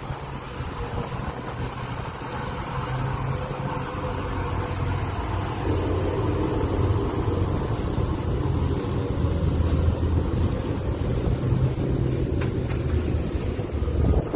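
SWATH pilot boat's engines running close alongside a ship, a steady low rumble over rushing water that grows louder about halfway through as the boat closes in against the hull. A low thud near the end.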